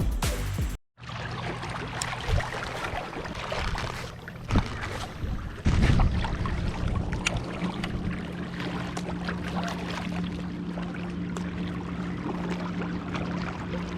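A brief bit of music ends under a second in. Then comes wind and water noise with scattered clicks and knocks, and from about six seconds in a steady low engine hum, typical of a motorboat running out on the lake.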